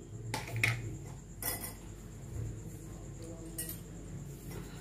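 A few light clinks of a metal spoon against a bowl and pans, scattered a second or so apart, over a low steady hum.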